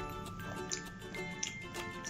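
Quiet background music with soft sustained notes, and a few faint light clicks.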